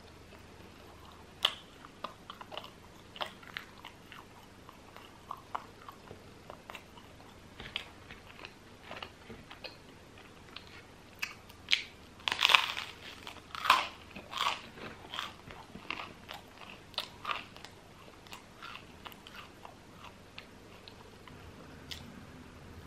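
Close-miked eating: a person biting and chewing crusty baguette with cheese. Irregular sharp crunches run throughout, with a louder, denser run of crunches about halfway through.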